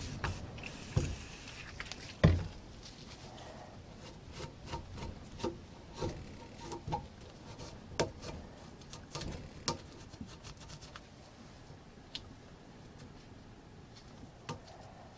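Aerosol cleaner hissing briefly onto a rusty steel brake pad carrier held in a vise, a sharp knock about two seconds in, then a gloved hand rubbing the carrier with a rag, with scattered light taps and clicks that thin out in the second half.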